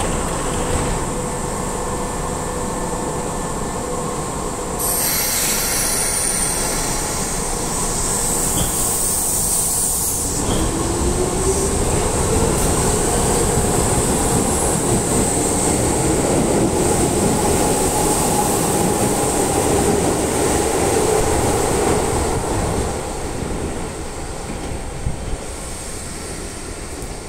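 A Keisei Line electric commuter train pulling out of the station. A loud high hiss comes about five seconds in, then the motors whine, rising in pitch as the train accelerates, over the rumble of the cars rolling past. The sound fades near the end as the train draws away.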